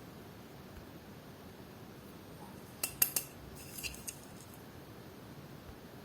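Small hard objects being handled, likely die-cast toy cars or their plastic packaging: a short cluster of light, sharp clicks and clinks around the middle, over a faint steady background.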